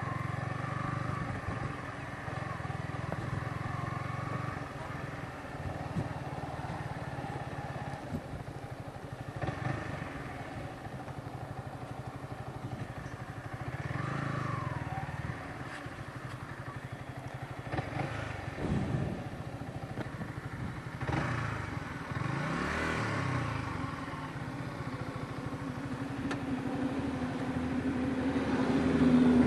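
Motorcycle engine running at low speed while the bike rolls slowly, a steady hum that grows louder near the end.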